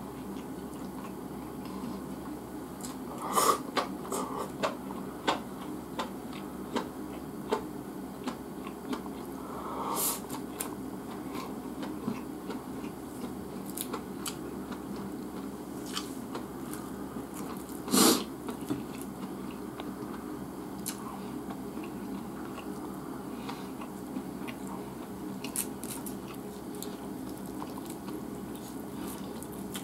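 Close-up eating sounds: chewing of salt-grilled flounder and rice, with scattered light clicks of chopsticks against the plate and bowls. The loudest clicks come a little after three seconds in and at about eighteen seconds.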